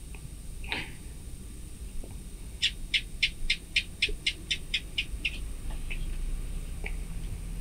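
An animal call: a quick run of about eleven short, evenly spaced chirps, about four a second, lasting under three seconds.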